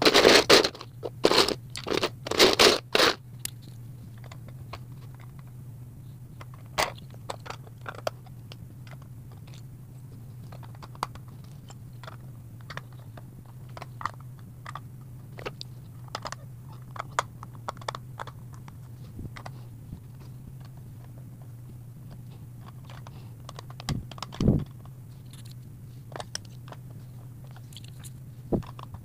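Plastic Lego bricks clicking and clattering as they are handled and pressed together. The clicks come thick and fast for the first three seconds, then turn sparse, with one louder knock about five seconds from the end. A steady low hum runs underneath.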